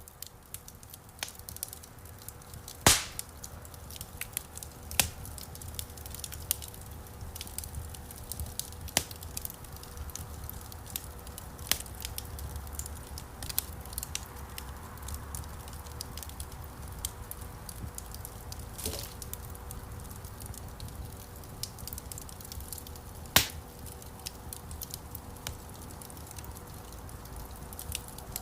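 Wood burning in a campfire, crackling with scattered sharp pops, two of them louder, about 3 seconds in and near the end, over a low steady rumble of the flames.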